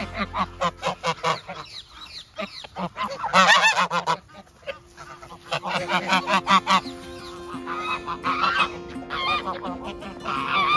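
A flock of domestic geese honking and cackling in quick repeated bursts, the loudest burst a few seconds in.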